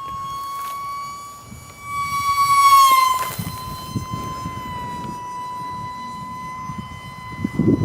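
Brushless electric ducted fan of a micro F-86 Sabre RC jet whining steadily in flight. The whine swells as the jet passes close about three seconds in, then drops in pitch and carries on.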